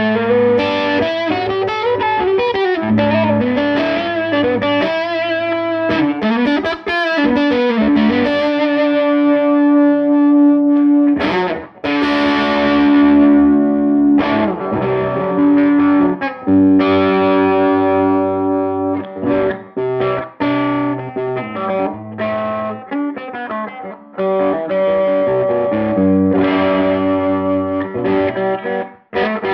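Electric guitar played through a Tone King Gremlin amplifier on its overdriven lead channel. It opens with bending, wavering lead lines and then moves to long held notes and chords ringing out, with a brief break about eleven seconds in.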